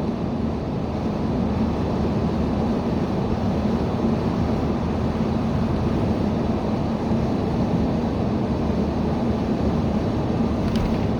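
Steady road and engine noise inside the cabin of a moving car, with a brief faint sharp sound near the end.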